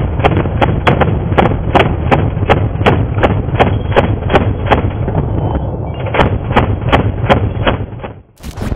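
Machine gun firing a long, steady string of shots, about three a second, over a heavy low rumble in muffled, band-limited combat-camera audio; the firing cuts off suddenly near the end.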